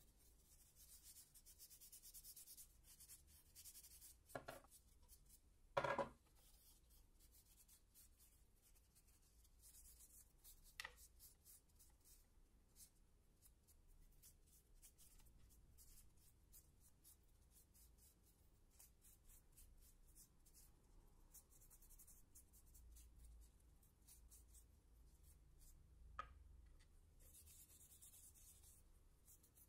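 Faint rubbing of a cloth rag over small wooden blocks, with a few light knocks as the blocks are handled and set down on the tabletop; the loudest knock comes about six seconds in.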